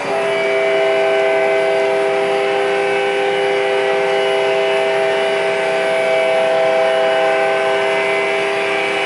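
Model diesel locomotive's electronic sound-system horn, a chord of several notes that comes on suddenly and is held steadily, over the running rumble of the model train on the track.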